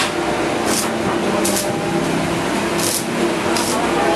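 Electric arc welding on a steel-rod frame: a steady hiss from the arc, with brief louder bursts every second or so.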